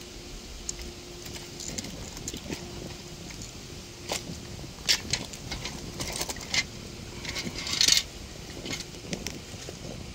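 Small clicks, taps and rattles of hand work on an outdoor electrical box as the in-use bubble cover is fitted, with a short scrape about three quarters of the way through. A faint steady hum runs underneath.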